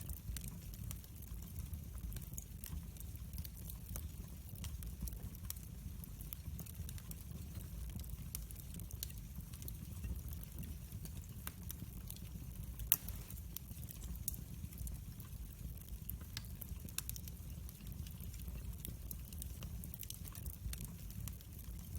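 Wood fire burning in a fireplace: a steady low rumble of flames with scattered sharp crackles and pops from the burning logs, one louder pop a little past halfway.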